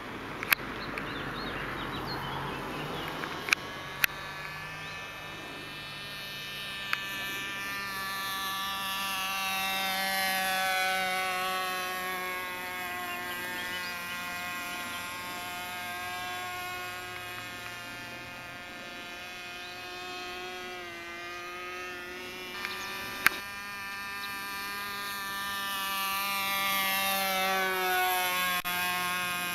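Radio-controlled model plane's propeller motor buzzing in flight, its pitch sliding and its loudness swelling as it passes close, about ten seconds in and again near the end. A few sharp clicks near the start and once more later.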